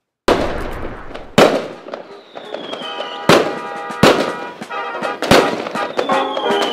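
Fireworks going off: about six sharp booms with crackling between them, and a falling whistle twice. Music starts to come in under them toward the end.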